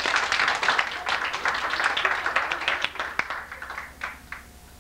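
Party guests applauding, the clapping thinning out and dying away near the end.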